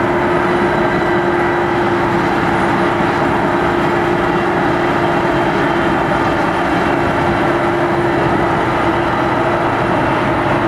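Heavy harvest machinery running steadily under load: a constant engine and drive noise with a steady held hum.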